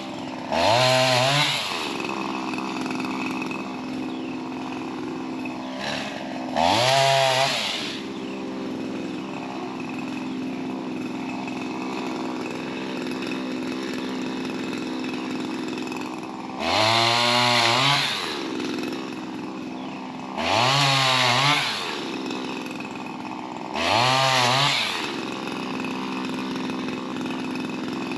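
Shindaiwa M230 multitool's small two-stroke engine driving a pole saw, idling steadily and revved up five times in short bursts, the pitch climbing and falling back each time, as the saw cuts through overhead tree limbs.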